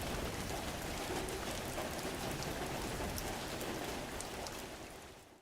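Fireplace fire crackling: a steady hiss with scattered sharp pops, fading out near the end.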